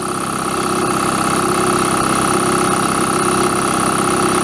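Electric BelAir air compressor running steadily under load as it pumps its tank up toward full pressure, close to its 135 psi maximum. Its run sound is very quiet for a compressor.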